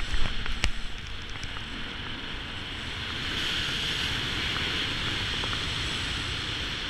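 Wind rushing over an action camera's microphone while descending under an open parachute canopy, with a few sharp clicks and knocks in the first second; the rushing grows a little louder about three seconds in.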